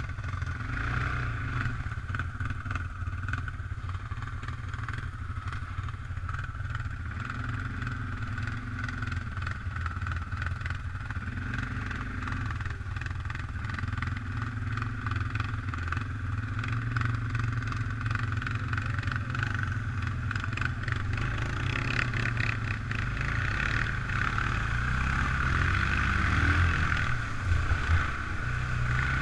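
Single-cylinder Suzuki ATV engines running at low throttle as the quads wade through deep water on a trail, the revs rising and falling, with water sloshing and splashing around the wheels. It gets somewhat louder near the end.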